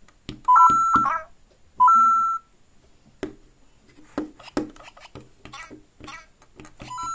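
Lego Super Mario interactive figures making electronic sounds from their built-in speakers: a loud two-note rising beep about half a second in, again at about 2 s and once more near the end. Between the beeps, plastic clicks and taps as a figure is hopped on the surface.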